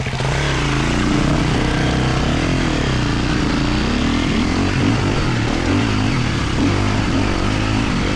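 Four-stroke 250cc enduro dirt bike engine being ridden, its pitch rising and falling again and again as the throttle is opened and rolled off.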